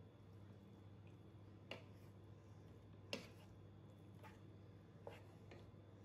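A spatula knocking against the side of a pan about five times at irregular intervals while spaghetti is tossed, the loudest knock about three seconds in, over a faint steady hum.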